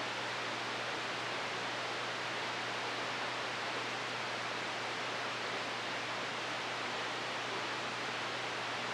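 Steady static hiss from an RCI-2995DX radio receiving an empty channel with the squelch open, with a faint low hum underneath. No station is transmitting; it is just band noise between transmissions.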